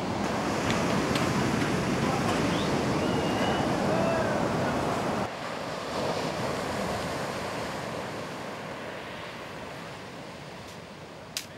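Ocean surf washing on a beach, a steady rush of waves. The level drops suddenly about five seconds in, and softer surf fades on after it.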